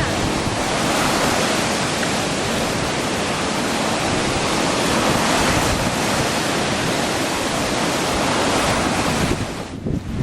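Strong wind on a river: a steady, loud rush of wind and wind-driven water, with wind hitting the microphone. It drops away sharply near the end.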